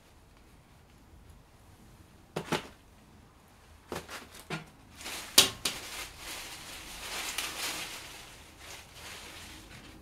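Small round vegetables being set into a wicker basket of fresh greens: a few sharp knocks, the loudest about five seconds in, followed by a couple of seconds of leaf and wicker rustling.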